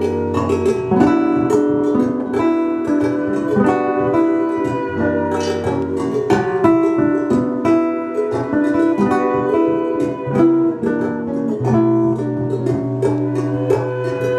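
Guitar music playing through a Naim NAIT amplifier and loudspeakers in a playback test of the repaired amp. It comes up suddenly at the start as the volume is turned up, then plays on steadily.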